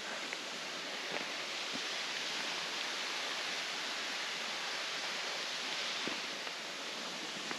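Steady rushing of flowing water, an even hiss that swells slightly in the middle, with a few faint ticks.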